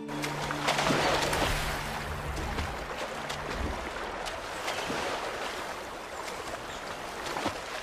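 Rushing river water with scattered small splashes.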